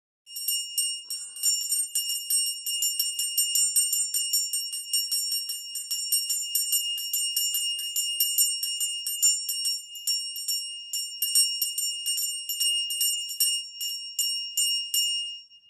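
Pooja hand bell rung steadily for aarti, about four strikes a second, each strike ringing on into the next in a high, sustained tone. The strikes slow slightly near the end, then stop.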